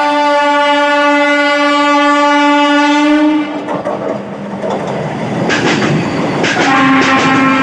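Vande Bharat Express train set sounding its horn in one long blast of about three and a half seconds, then passing at speed with a rushing noise and rhythmic wheel clatter over the rail joints. A second horn blast begins near the end.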